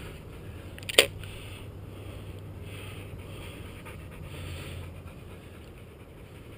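Deutsch Drahthaar (German wirehaired pointer) panting steadily in soft, even breaths, with one sharp click about a second in.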